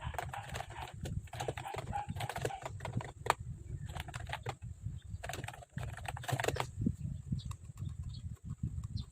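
Irregular bursts of clicking and clacking keys, typing on the Mofii Sweet keyboard, over a steady low room rumble.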